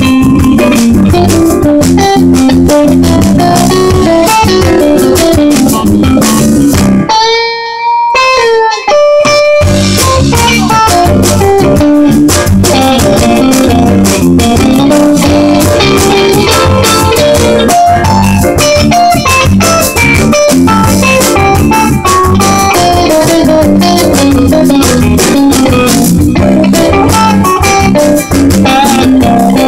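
Live jazz band playing loudly, electric guitar to the fore over bass and drums. About seven seconds in the band stops for a couple of seconds, leaving a few ringing guitar notes, then comes back in.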